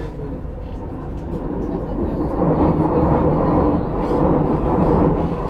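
Delhi Metro train running, heard from inside the carriage: a steady rumble of wheels on rail that grows louder about two seconds in.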